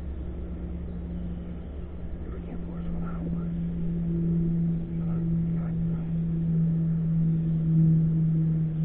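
A steady engine hum that grows gradually louder, as from an approaching motor.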